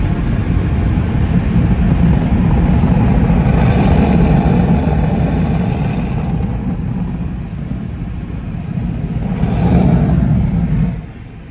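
Automatic car wash equipment working over the car, heard from inside the cabin as a loud rushing rumble and hiss. It eases off about six seconds in, swells again, and drops away sharply near the end.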